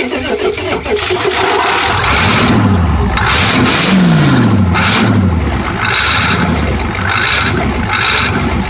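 Bare V8 diesel engine cranking and catching on starting fluid sprayed into its intake, then revving up and down a couple of times before running on.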